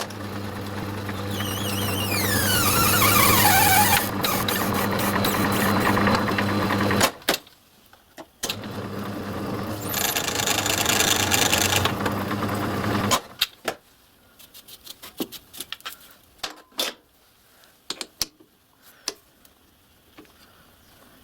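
Myford lathe running with a steady motor hum and a falling high squeal a couple of seconds in. It stops about seven seconds in, runs again, and stops for good about thirteen seconds in, followed by scattered light metallic clicks and knocks of work being handled at the chuck.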